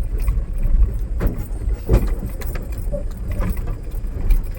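Mahindra Bolero Pickup driving over a rough off-road track: a steady low engine and road rumble, with rattling and clattering knocks as the pickup jolts over bumps, the loudest about two seconds in.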